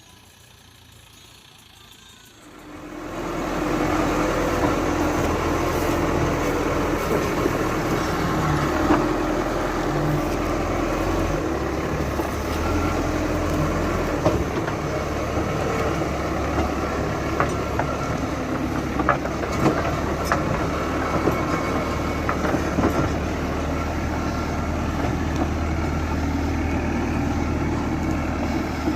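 Heavy diesel machinery rising in loudness about three seconds in, then running steadily with metallic rattling and clanking. Its engine note shifts partway through.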